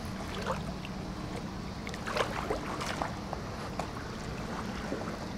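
Outdoor shoreline ambience: wind on the microphone and gentle water at a calm shallow beach, with a few faint short sounds scattered through it.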